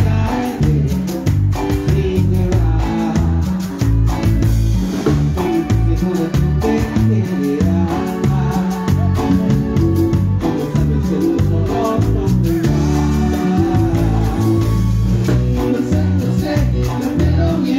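Live cumbia band music played loud through a stage sound system: heavy bass and a steady percussion beat, with guitar and melody lines over it.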